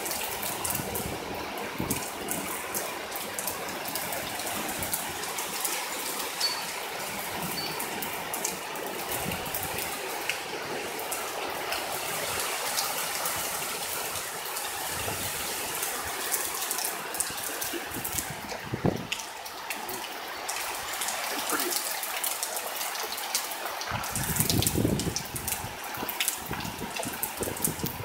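Heavy thunderstorm rain pouring and splattering, a steady rush with scattered drop hits, driven by strong wind. A louder low rush comes near the end.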